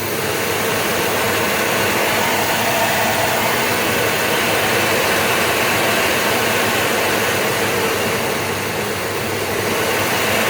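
Samsung SC18M21 vacuum cleaner running steadily with a loud rushing hum on a test run after repair of its power cord reel. The sound climbs a little in the first second or two as the suction power is turned up, and dips briefly near the end before coming back up.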